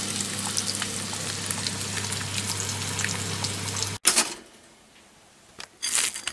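Eggs frying in a pan, a steady crackling sizzle over a low hum, which cuts off abruptly about four seconds in. Near the end, a knife scrapes butter across toast.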